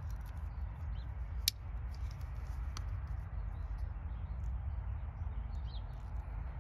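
A folding utility knife clicks sharply once about a second and a half in, with a fainter click a little later, as it is opened and used to cut the tip off a plastic foam cartridge. A steady low rumble and faint, short bird chirps run underneath.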